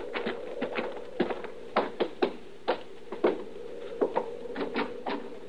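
Footsteps of two men walking, boots striking in an irregular series of short taps and knocks, several a second, as a radio-drama sound effect.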